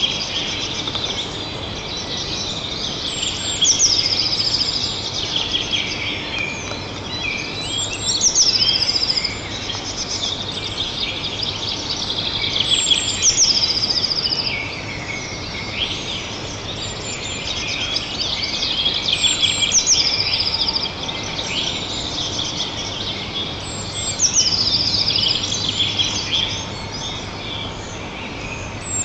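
Small songbirds singing in a chorus, with one bird repeating the same short song, a run of notes dropping in pitch, about every four to five seconds.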